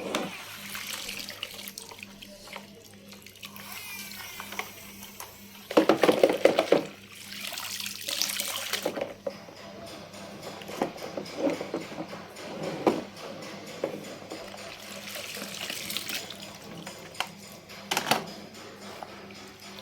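Water splashing and sloshing in uneven bursts as toy cars are moved through a tub of water, loudest about six and eight seconds in, with a few sharp knocks.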